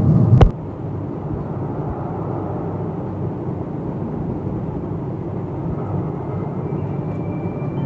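Music cuts off with a knock about half a second in, then a steady low rumble, the kind a passing vehicle or aircraft makes.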